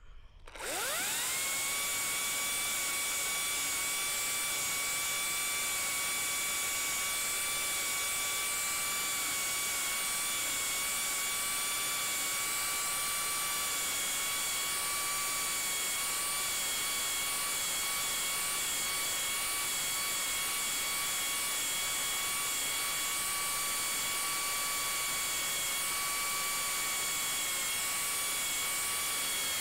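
A power tool's motor spins up about half a second in and runs with a steady high-pitched whine over a hiss, cutting a hollow into the end of a larch rafter log.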